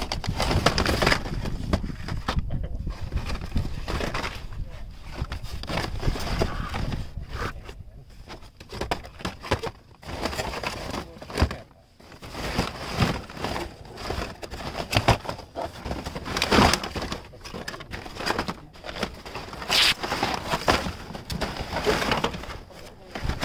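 Carded die-cast toy cars and blister-packed keychains being rummaged through by hand in a plastic bin: irregular crinkling and clacking of plastic blisters and cardboard backing cards, with a lull about halfway.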